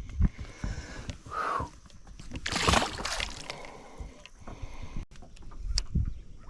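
Water sloshing around a small fishing boat or kayak, with scattered low knocks and a splash about two and a half seconds in.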